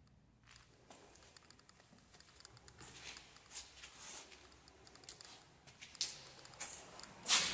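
Footsteps crunching over debris on the floor: a string of small crackles and clicks with several louder scuffs, the loudest near the end.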